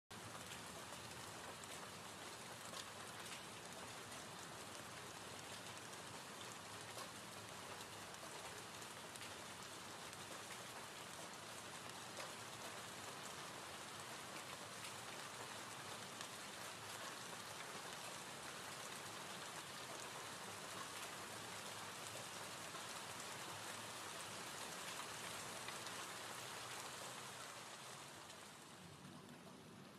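Gentle rain ambience track: a soft, steady rain hiss with faint scattered drop ticks, fading down near the end.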